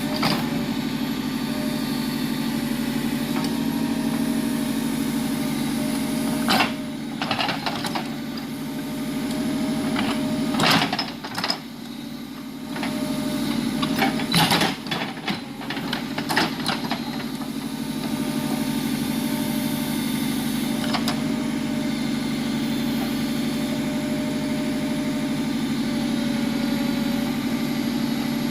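Tractor loader backhoe's diesel engine running steadily, with a stretch of knocks and clatter in the middle.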